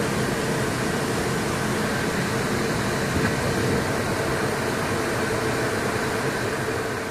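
Steady in-flight noise of an E-3 Sentry, a roar of jet engines and rushing air with a few steady hums running through it.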